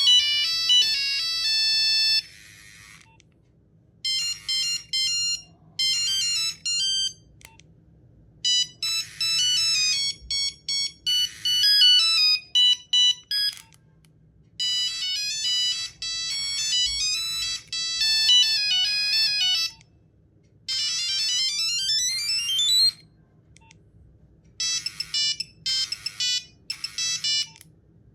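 Nokia 1100 mobile phone playing its monophonic ringtones: a series of short electronic beeping melodies, one after another, with brief pauses between them. Near the end one tune is made of fast rising runs of notes.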